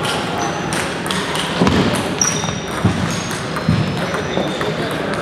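Table tennis balls clicking off paddles and tables on several tables at once, with a few dull thuds and brief high squeaks over a background of voices, in a large, echoing sports hall.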